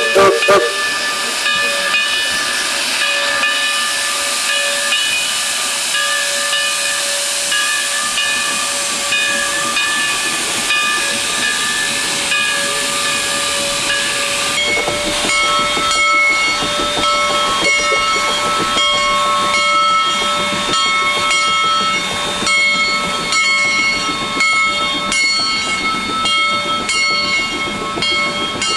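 Geared steam locomotive venting steam: a loud, steady hiss carrying several whistling tones. About halfway through the tones change and a run of short pulses joins the hiss.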